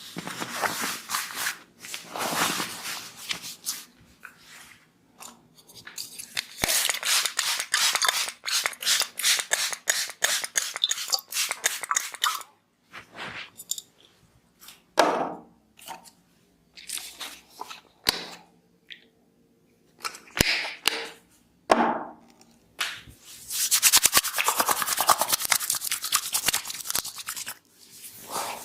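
Hands rapidly slapping and tapping on the head and skin during a barber's head massage, in long runs of quick sharp strokes with short pauses between.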